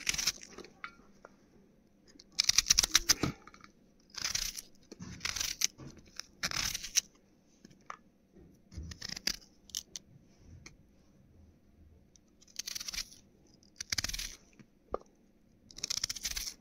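Knife cutting through raw onions, a run of crisp crunching cuts that come in irregular short bursts with pauses between, the loudest a few seconds in.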